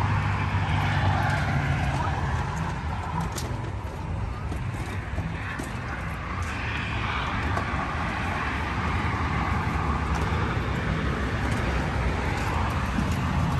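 Steady outdoor background noise: an even rumble like distant traffic, with a few faint clicks.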